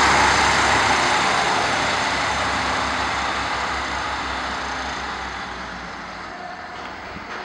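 SNCF X 73500 diesel railcar moving off down the line. Its pulsing diesel engine rumble and rolling noise fade steadily as it goes, and the engine beat drops away about six seconds in.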